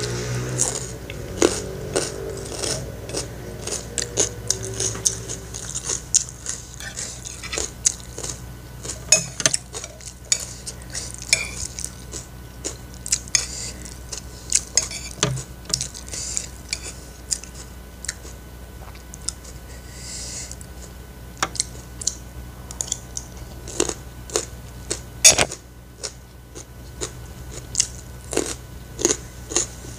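Close-up eating sounds: irregular chewing and crunching of mouthfuls of food, mixed with a metal spoon clinking and scraping on a ceramic plate. One sharp click stands out late on.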